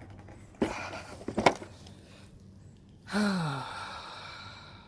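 Heavy car battery knocking and scraping as it is set down into its tray, followed by a short falling grunt-like exhale of effort from the person lifting it.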